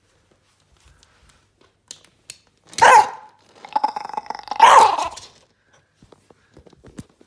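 A schipperke giving two sharp barks, about three and about four and a half seconds in, with a held growl between them: a defensive warning while guarding the laundry it lies on.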